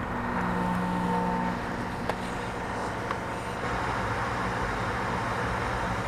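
Steady blowing hiss of a hot-air rework station and bottom preheater, heating a chip to desolder it. A brief low hum sounds in the first second or so, and there are two faint clicks.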